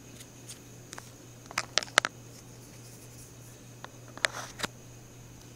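Light clicks and taps of plastic toy action figures being handled and set down, a cluster about two seconds in and a few more near the end, over a faint steady low hum.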